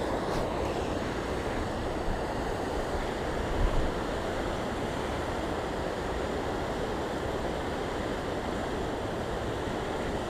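Steady rush of a river in flood, its fast current running high past the bank, with a brief low thump a few seconds in.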